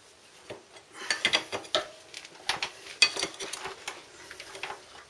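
Steel ring spanner clinking and rattling on the loosened front sprocket nut of a Suzuki Bandit as it is worked off the shaft: a string of irregular sharp metal clicks with a brief ringing, starting about a second in.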